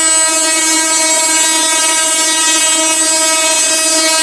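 Locomotive horn sounding one long, steady blast: a single held note rich in overtones.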